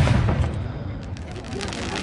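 Fireworks display: the low rumble of a shell's burst fades away at the start, followed by scattered sharp crackles.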